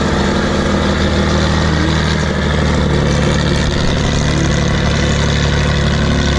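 Tatra 813 8x8 trial truck's diesel engine running hard and steady under load as the truck climbs a steep dirt slope.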